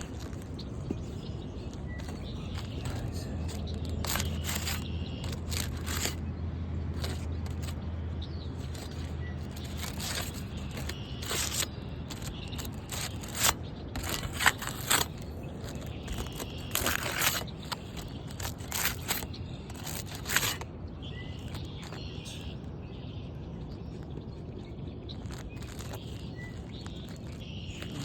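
Three-tab asphalt shingles being worked loose from a roof: a run of irregular scrapes and cracks, clustered through the middle and loudest in bursts a little past halfway, then quieter. A low hum runs through the first third, and a bird chirps now and then.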